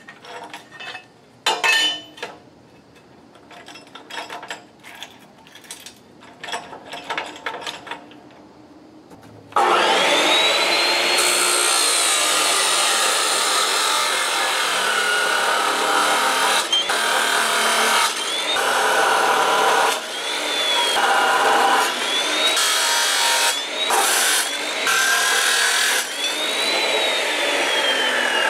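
Light clicks and knocks as steel tubing is set in the vise. Then, about a third of the way in, a Ridgid abrasive chop saw starts with a rising whine and grinds through the steel tubing. The motor's pitch dips and recovers several times under the cut, and near the end it winds down with a falling whine.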